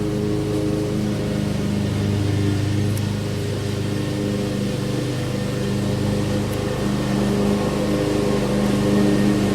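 An engine running steadily at an even pitch, with a constant low hum.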